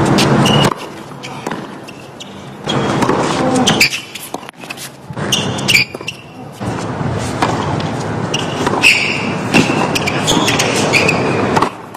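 Tennis ball struck by rackets in a rally on a hard court: sharp hits at intervals, with crowd applause that dies away about a second in and crowd noise swelling again through the second half.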